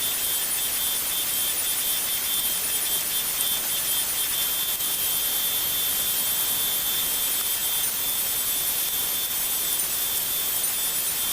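A workshop machine running steadily: an even hissing whir with a couple of thin high whine tones, unchanging throughout.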